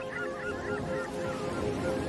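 A flock of seabirds calling, a rapid run of short chirping calls that thins out and stops near the end, over a steady held music chord.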